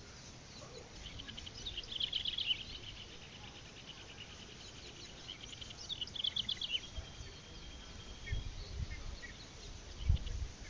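Bird calls: two bursts of rapid chattering trills, the first about a second in and the second about halfway, with a few scattered single chirps, over a steady outdoor hiss. A thin, steady high tone follows the second burst, and low thumps come near the end.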